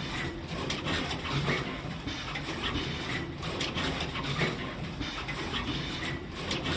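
Automatic connector housing insertion machine running: a steady mechanical hum with irregular clicks and knocks from its moving parts.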